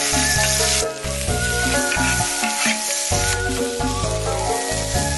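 Food sizzling in hot oil: sliced pork belly frying in a pan, then a stir-fry of pork, sliced vegetables and scallion. The sizzle is loudest in the first second, drops back for about two seconds, and comes up again past the middle, over background music.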